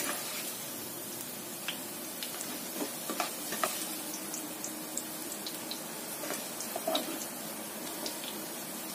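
Potato cubes frying in shallow oil in a nonstick pan: a steady sizzle with scattered small pops. A slotted spatula stirs and scoops the cubes, giving a few louder clicks and scrapes against the pan, near the middle and about seven seconds in.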